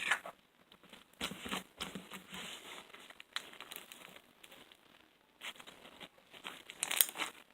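Foam bead slime being squeezed and stretched by hand, the foam beads crunching and crackling in irregular bursts, loudest near the end.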